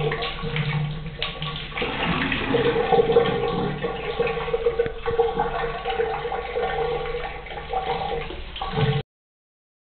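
Tap water running in a steady stream and splashing; it cuts off suddenly about nine seconds in.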